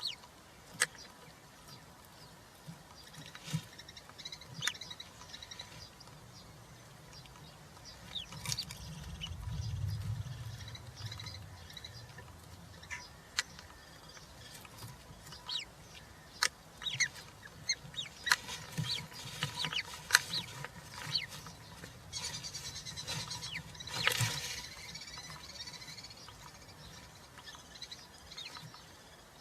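European roller chicks in a nest box making scattered short, sharp chirps and clicks at irregular intervals, busier in the second half. A low rumble comes about ten seconds in, and a burst of rustling about twenty-four seconds in.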